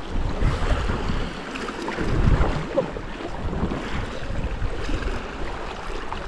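Sea waves washing against shore rocks, with wind rumbling on the microphone in uneven gusts.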